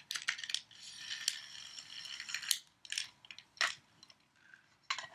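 Battery-powered Trackmaster toy engine's small electric motor and plastic gears whirring for about a second and a half, then stopping. Sharp plastic clicks and knocks from the toy being handled come before and after.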